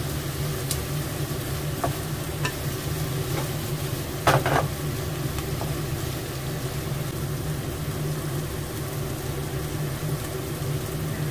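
Diced onion and sliced chicken sausage sizzling as they fry in butter in a frying pan, with a few scrapes and taps of a wooden spatula against the pan; the loudest is a brief clatter about four seconds in. A steady low hum runs underneath.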